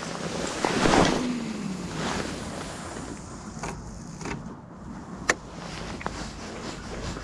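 A cast with a spinning rod: a loud swish as the rod and line go out about a second in, then a few sharp clicks and a Daiwa Crest spinning reel being cranked to bring the lure back.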